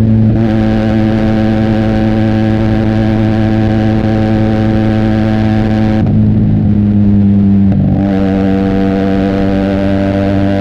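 Benelli TNT 300 parallel-twin engine through an Austin Racing aftermarket exhaust, running at steady cruising revs. About six seconds in, the throttle eases and the exhaust note softens for about two seconds, then picks back up.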